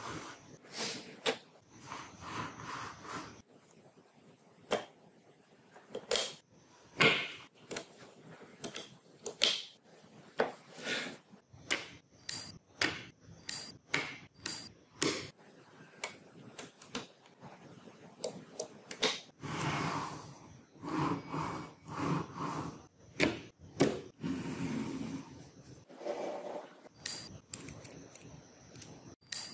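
Small magnetic balls clicking and snapping together as they are placed, in irregular sharp clicks, with denser clattering stretches about twenty and twenty-four seconds in.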